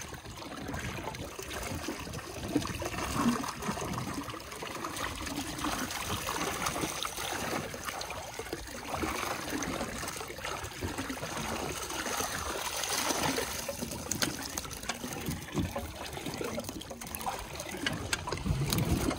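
Water splashing and trickling around a mesh hoop bait net as it is drawn along the surface and lifted, water streaming off the mesh.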